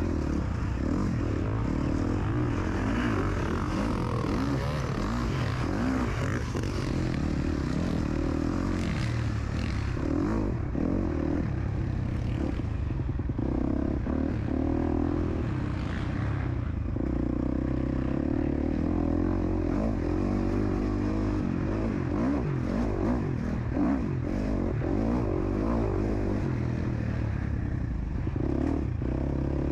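KTM SX-F 250 dirt bike's single-cylinder four-stroke engine revving up and down continuously as it is ridden around the track.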